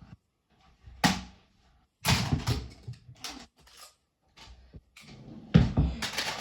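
A tennis ball thudding into a structure of plastic magnet tiles, with the tiles clattering. There are several separate knocks: one about a second in, a busier patch of clatter around two to three seconds, and the loudest thump about five and a half seconds in.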